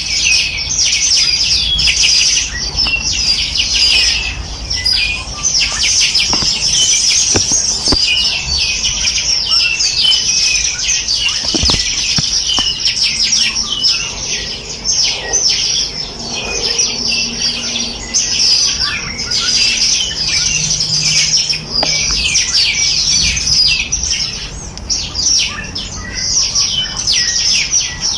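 Many small birds chirping and twittering at once: a dense, unbroken chorus of quick, high-pitched, downward-sliding chirps that overlap throughout.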